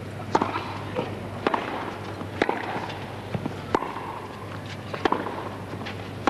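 Tennis ball struck back and forth by racquets: a serve, then a baseline rally of sharp pops about every second and a half, with fainter ticks in between.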